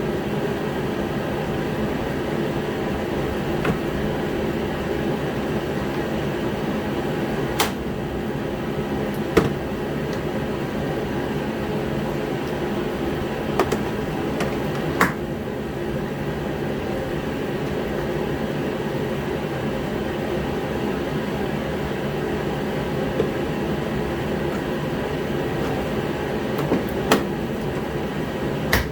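Steady hum of a running heater, with about eight sharp clicks and knocks scattered through it from plastic trim and parts being handled.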